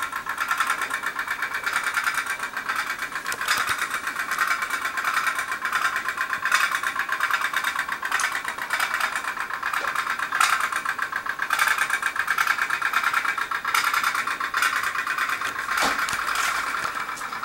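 Tin pop-pop steam boat, its candle-heated boiler and exhaust pipes putt-putting with a rapid, steady popping as it drives itself through the water.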